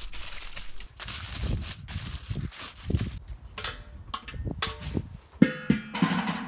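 Metal lid of a Weber kettle grill being lifted off and hung on the side of the kettle: scattered handling knocks, then a sharp clank about five seconds in.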